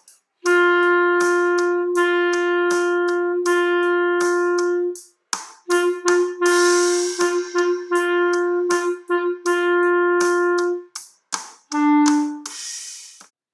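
B-flat clarinet playing a beginner march line: long held notes on open G, then a run of shorter repeated G's, ending on a lower E about twelve seconds in. Steady, regular clicks keep the beat underneath.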